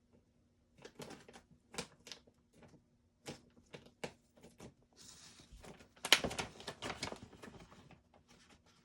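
Rummaging through craft supplies on a desk: scattered light clicks and taps of small items being picked up and set down. Paper rustles from about five seconds in, and there is a louder clatter of clicks around six seconds.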